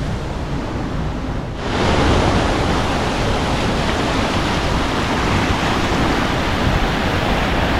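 Waterfall rushing: a steady noise of falling water with no distinct strokes, which suddenly gets louder and fuller about a second and a half in.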